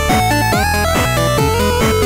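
Upbeat electronic background music with a steady beat of about two strokes a second and a stepping synth melody.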